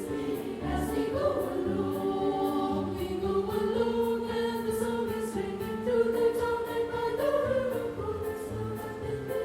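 Women's choir singing a Christmas carol in sustained multi-part harmony, with a steady high percussive beat ticking along in the accompaniment.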